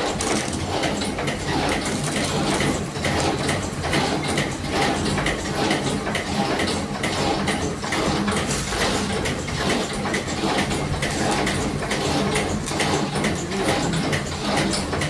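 A spring coiling machine running steadily, feeding wire and forming small coil springs with a fast, even mechanical clatter of repeated clicks.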